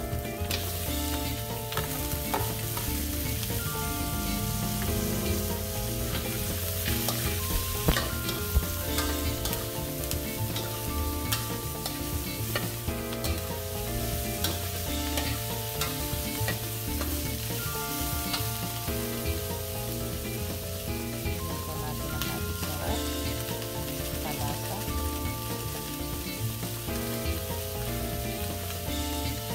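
Pieces of boiled rabbit meat sizzling in hot oil with sautéed onion and garlic in a wok, a ladle scraping and clicking against the pan as they are stirred.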